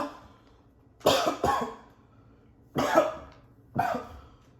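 A person coughing harshly, several short coughs in three or four bouts with quiet gaps between them. The coughing is faked for a prank, with stage blood in the mouth.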